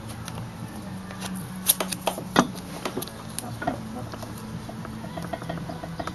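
Hands tearing tape and pressing it onto a bent steel exhaust tube: scattered small crackles and clicks, with a quick run of little ticks near the end, over a steady low hum.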